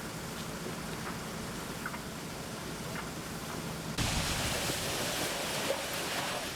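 Steady rushing noise of a large building fire. About four seconds in it jumps abruptly to a louder, hissing roar that continues.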